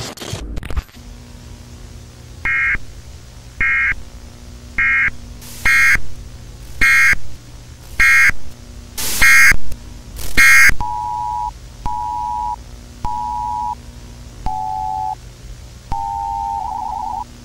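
Electronic beep tones over a steady low tape hum: a short burst of static, then eight high-pitched beeps about a second apart, the later ones louder and harsh with static, followed by five lower beeps, the last breaking into a quick warble.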